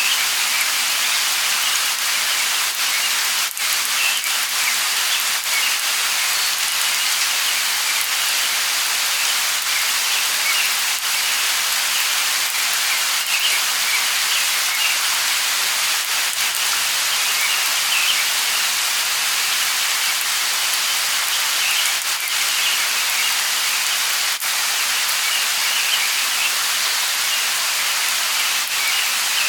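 Steady light rain hissing, with scattered individual drops ticking, and faint short high chirps from birds now and then.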